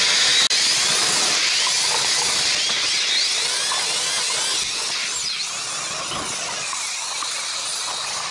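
Power-driven metal meat grinder running steadily while tomatoes are fed in and ground to pulp; the motor noise gets slightly quieter a little past halfway.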